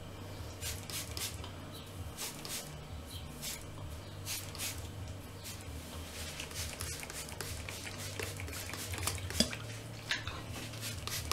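Hands scrunching and rubbing through damp, coily hair, making short irregular crackling rustles, over a steady low hum.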